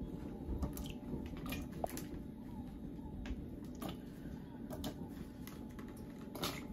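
Tomatillos being handled by hand, giving faint, scattered light clicks and knocks as the fruit bump against a plastic basket and each other.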